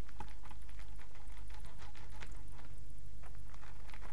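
Kitchen knife slicing through a 'ninjin' puffed-rice candy in its plastic bag: an irregular run of small crunches and crackles of bag and rice. A steady low hum runs underneath.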